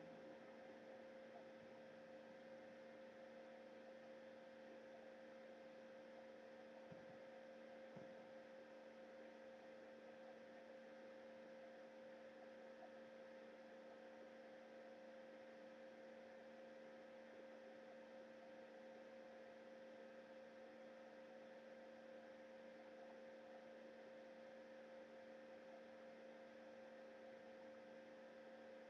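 Near silence with a faint steady electrical hum: several constant tones over a low hiss, typical of a security camera's recording electronics. Two faint low knocks come about seven and eight seconds in.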